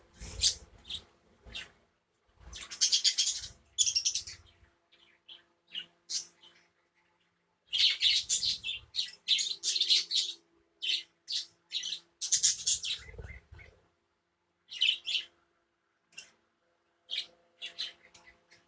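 A colony of budgerigars chirping and chattering in irregular bursts, with short silent gaps between them.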